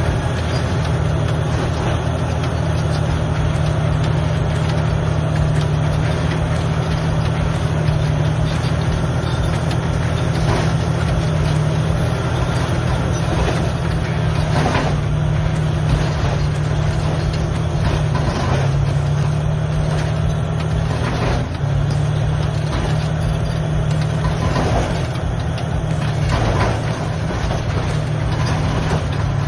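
Large mining bulldozer's diesel engine running steadily under load, with a few sharp metallic clanks from time to time.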